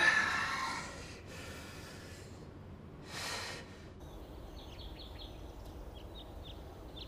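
A man breathing out heavily three times, the first breath the loudest, like deep sighs or snorts. From about four seconds in, small birds chirp in short repeated calls over a steady low outdoor hum.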